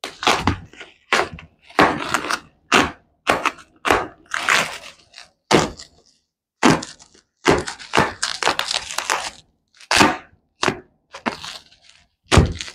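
Headlamp-set packaging being handled and unwrapped: a string of irregular knocks and crackles, with longer rustling stretches and a short pause about six seconds in.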